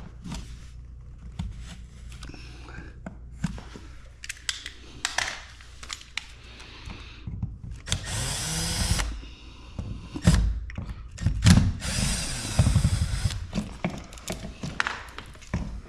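Power drill-driver running in short runs of a second or two, the first rising in pitch as it spins up, backing out the screws that hold a wall GFCI outlet, with clicks and scrapes of the screws and plate in between.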